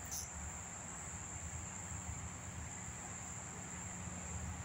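Steady high-pitched drone of insects in mangrove, with a low uneven rumble on the microphone underneath.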